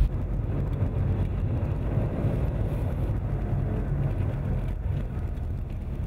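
Car driving at steady speed, heard from inside the cabin: an even low rumble of engine and tyres on the road.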